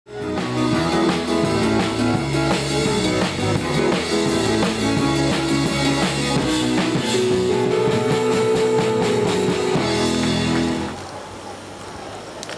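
Rock music with a drum kit and guitar, ending about eleven seconds in and leaving a quieter steady background hiss.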